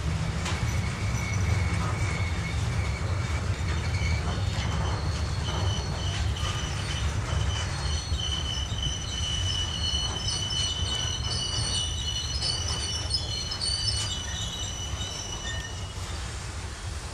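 Container freight train's wagons rolling past with a steady low rumble. High-pitched squealing from the running gear comes and goes over it: one thin squeal in the first few seconds, then higher, wavering squeals from about five seconds in until near the end.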